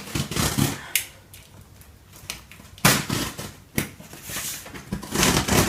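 A large cardboard box being handled and shifted: a few sharp knocks and thuds, then a rustling scrape near the end.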